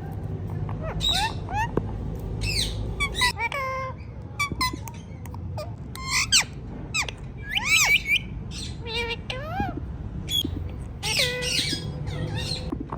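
Indian ringneck parrot squawking and chattering: a rapid string of short, high calls that slide sharply up and down in pitch, over a steady low hum.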